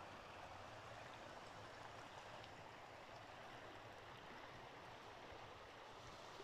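Faint, steady rush of a shallow creek running over stones.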